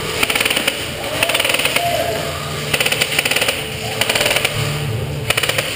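Airsoft guns firing in short full-auto bursts: about five bursts of rapid cracks, roughly twenty a second, each burst lasting under a second.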